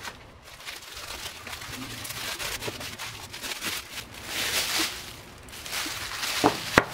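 Plastic and foam packing wrap crinkling and rustling as it is pulled open by hand, loudest about halfway through, then two sharp knocks near the end as the acrylic block is set down on the wrap.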